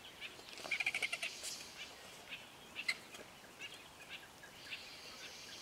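Vultures and spotted hyenas squabbling over a carcass: short, high squealing and cackling calls, with a fast chattering run about a second in and one sharp call near the three-second mark.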